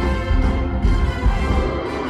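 Loud orchestral theme music with heavy low drum hits.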